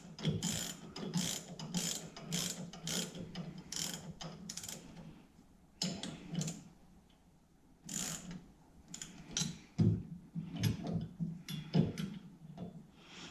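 Hand socket ratchet clicking in repeated strokes, about two a second, snugging the bolts of a steering wheel puller. It goes quiet for a few seconds past the middle, then gives a few scattered clicks.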